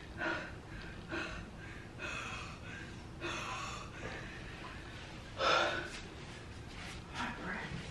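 A person's breathing: several short breathy puffs and gasps, the loudest about five and a half seconds in.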